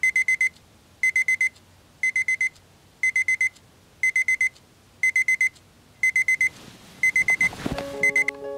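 Battery quartz alarm clock beeping: quick runs of four or five high beeps, one run each second. Near the end a hand knocks on top of the clock and the beeping stops, switched off.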